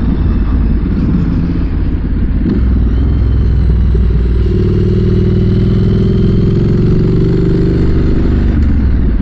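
Triumph motorcycle engine running under throttle, its pitch climbing from about halfway through and falling back near the end, with wind noise on a helmet-mounted microphone.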